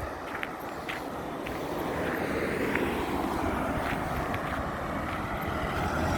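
Wind buffeting the microphone while a vehicle passes, its sound falling in pitch over a few seconds.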